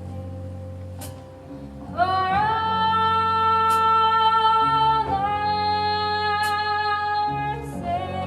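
A female voice singing a song, holding long sustained notes over a guitar accompaniment. The first held note starts about two seconds in and a second one follows about five seconds in.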